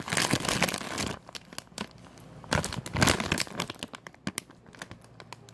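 Rustling, scraping handling noise as hands adjust the recording phone close to its microphone: two bursts of about a second each, at the start and about two and a half seconds in, with scattered light clicks between.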